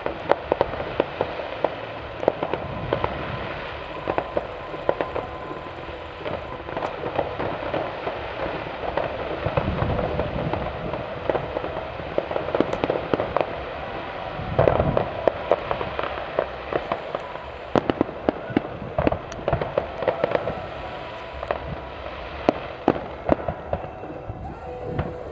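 Fireworks display going off continuously: rapid cracks and pops over a steady crackle, with heavier deep booms about ten seconds and fifteen seconds in.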